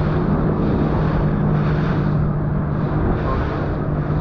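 Steady hum of a small aluminium boat's outboard motor running at idle, mixed with wind buffeting the microphone.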